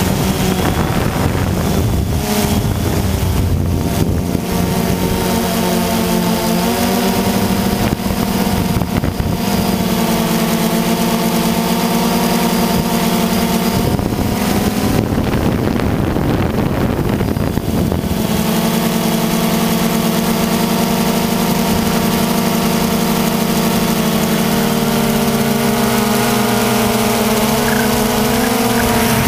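DJI Phantom 2 quadcopter's electric motors and propellers buzzing, picked up by the GoPro slung beneath it, the pitch shifting in steps as the drone manoeuvres. Wind noise on the microphone rushes in a few seconds in and again around the middle.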